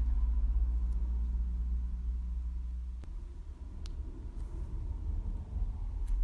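Low rumble of a passing car, easing off somewhat after about two seconds and cutting off suddenly at the end.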